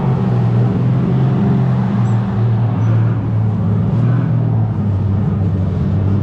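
Electric go-kart running with a steady low hum that shifts in pitch a couple of times, over a constant rush of noise.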